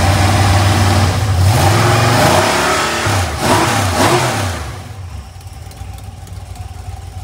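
GM 5.3 L LM7 iron-block V8 with a mild cam, believed to be a BTR Stage 2 truck cam, revved by hand at the carburetor throttle. The revs rise and fall quickly several times on its light stock flex plate, then drop back to a steady idle about four and a half seconds in.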